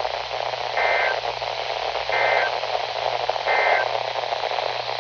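Emergency Alert System broadcast heard over a radio receiver through heavy static. Three short two-tone data bursts come about 1.3 s apart: the SAME header tones that open an EAS alert.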